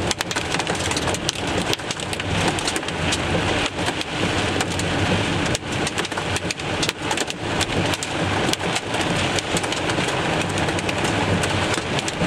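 Heavy rain and hail hitting a moving car: a loud, steady hiss of rain on the roof and windshield, with many sharp ticks of hailstones striking the body and glass.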